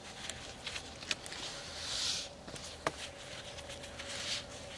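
Braided lead rope swishing and rustling as gloved hands pull it through the loops of a knot, with two longer swishes about two seconds in and near the end, and a few sharp clicks.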